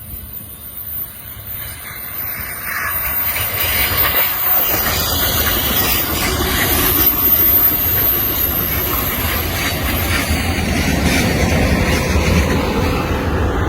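Train passing close by: a rushing hiss and rumble of wheels on rail that grows louder over the first few seconds and then stays loud.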